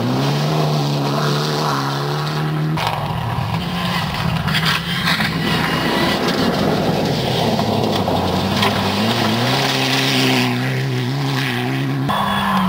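Mitsubishi Lancer Evolution rally cars with turbocharged four-cylinder engines, driven hard on loose gravel. The engines run at high revs over the rush of tyres on gravel, with the pitch rising as a car accelerates about two thirds of the way in. The sound cuts abruptly twice as the footage jumps between passing cars.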